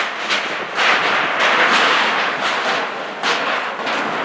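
Hurricane-force wind, loud and gusty, surging and easing about once a second, with sharp hits mixed into the rush.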